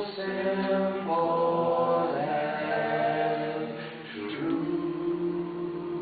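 A cappella vocal group singing without instruments, voices in close harmony moving through a few chords and then settling onto a long held final chord.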